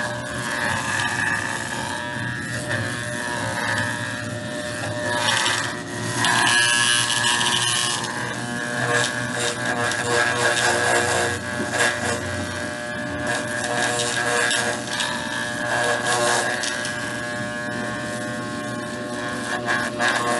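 Corded electric pet clippers buzzing steadily as they shave through a small dog's matted, knotted coat.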